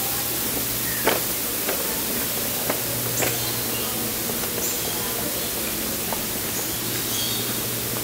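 Steady hiss of indoor rainforest exhibit ambience, with a few short, high bird chirps scattered through the second half. A handful of light clicks and knocks come in the first few seconds.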